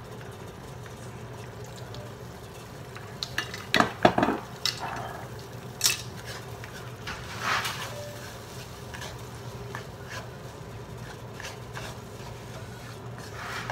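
Wooden spatula stirring sauce in a nonstick pan, scraping and tapping against the pan, with a cluster of louder knocks about four seconds in.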